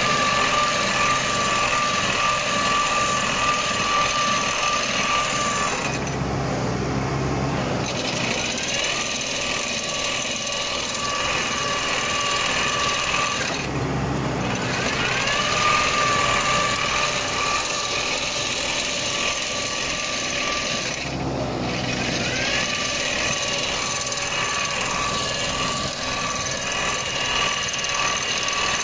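Hasatsan H 4000 tree shaker running with its head clamped on an olive tree trunk, shaking the tree to drop the olives, with a steady mechanical whine. It cuts out briefly three times, about 6, 14 and 21 seconds in, and each time winds back up with a rising whine.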